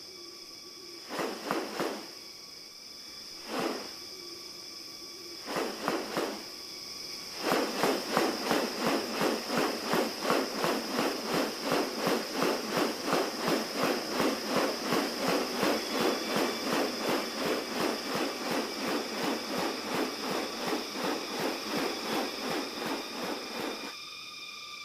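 Rainforest ambience: a steady high drone of insects, several pitches held together. A few short rustling sounds come first, and then, from a few seconds in, a long even run of fast rustling pulses about two to three a second, which stops shortly before the end.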